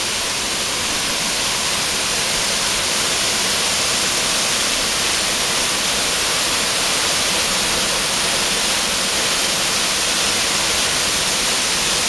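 Waterfall pouring down a rock face into a pool: a steady, unbroken rushing of falling water.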